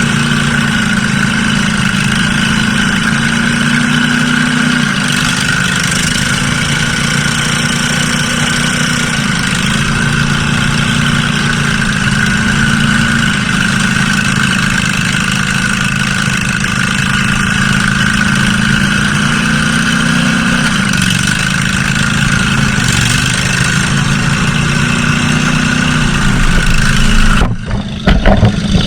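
Mud mower (modified riding lawn mower) engine running steadily as it drives along the trail, its pitch rising and falling a little, with a steady high whine above it. Near the end the sound briefly breaks up with a few knocks.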